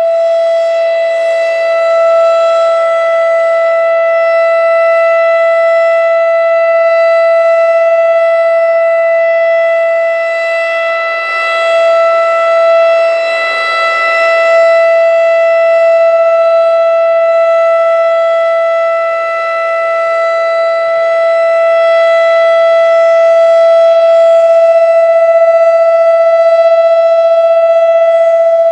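Federal Signal Thunderbeam RSH-10A outdoor warning siren sounding a loud, steady single tone at unchanging pitch, swelling and fading a little as its rotating horn turns toward and away.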